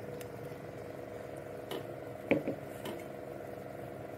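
Steady low hum of a running machine, with a few faint taps, the loudest about halfway through.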